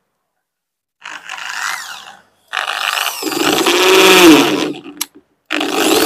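Makita M8104B 430 W corded hammer drill boring into a block of wood. It runs in three trigger pulls: a short burst about a second in, a longer run from about two and a half seconds in during which the motor pitch dips and recovers under load, and a restart near the end.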